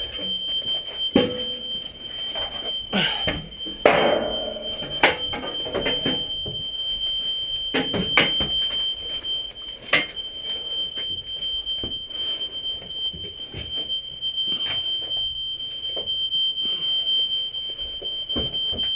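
A smoke alarm sounding a steady high-pitched tone without a break. Scattered knocks and rustles run over it, with a louder scuffle about four seconds in.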